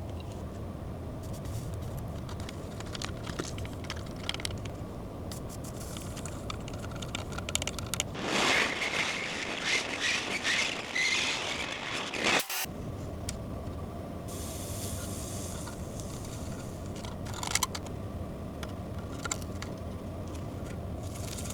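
Electronics repair bench sounds: a steady low hum with faint scattered clicks of tools. About eight seconds in comes a few seconds of louder scraping hiss, which cuts off abruptly.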